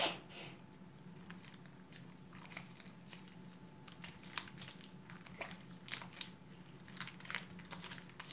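Sticky glue-and-borax slime being worked in the hands, giving faint, scattered clicks and small pops as it pulls off the fingers, with one sharper click at the start.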